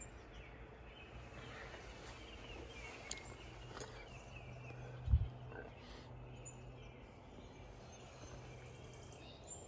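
Quiet outdoor ambience with a steady low hum and faint, scattered bird chirps, broken by one dull low thump about five seconds in.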